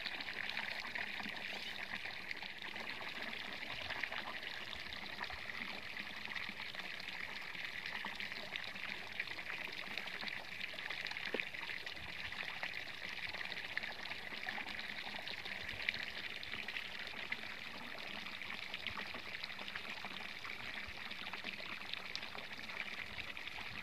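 Water pouring steadily from the open end of a PVC pipe into the stream below, a constant splashing.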